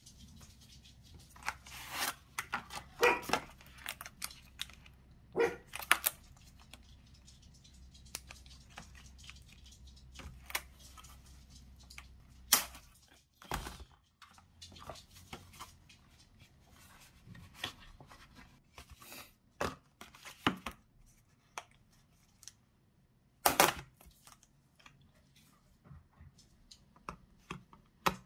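Plastic film lids being peeled off ready-meal trays: irregular crinkling, crackling and tearing of the thin packaging film, in scattered bursts as the lids stick and tear.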